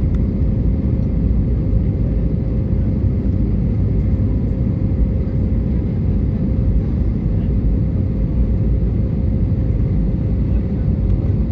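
Steady cabin noise inside an airliner in flight: a deep, even rumble of engines and airflow, with a constant hum running through it.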